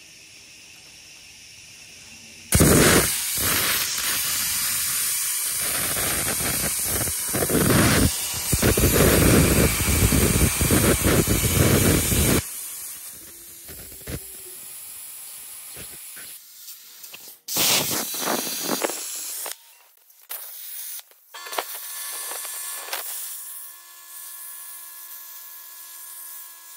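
65-amp Hypertherm plasma cutter on an Arcdroid CNC arm firing its arc and cutting half-inch steel plate: a loud, steady hiss starts about two and a half seconds in, runs about ten seconds and stops abruptly. Quieter, broken-up hissing follows, with a faint steady hum near the end.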